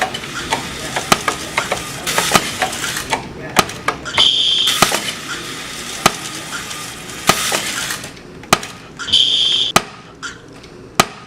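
An edited collage of everyday sounds: many sharp clicks, knocks and clinks, a few brief rushes of noise, and a short high beep twice, with some voices.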